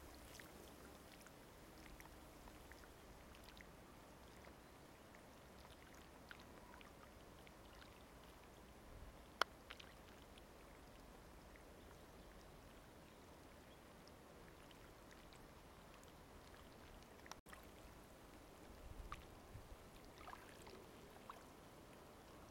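Near silence: faint outdoor background with a low hiss and faint water sounds. A single sharp click comes about nine seconds in, and a few faint ticks come near the end.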